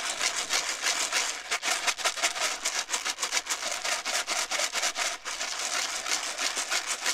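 6 mm hard fishery pellets shaken vigorously in a bait tub under a strainer, a continuous dense rattle. They are being shaken to coat them with drops of liquid bait attractant.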